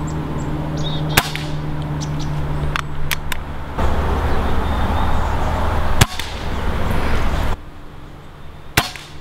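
Crosman 1720T PCP air pistol firing .177 pellets: sharp cracks about a second in, about six seconds in and near the end, with a few smaller clicks between, over a steady low hum.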